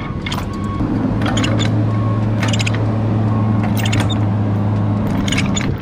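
Ratchet chain binder being cranked tight on a steel load chain, giving a run of sharp clicks as the handle is worked. Under it, a steady low hum starts about a second in and stops just before the end.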